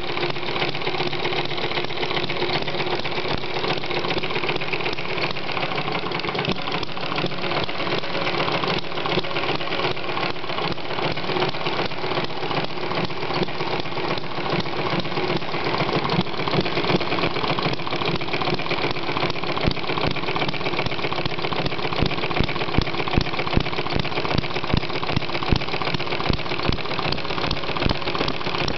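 Model Atkinson engine running steadily with a fast, even mechanical clatter. From about halfway through, louder single knocks stand out every so often.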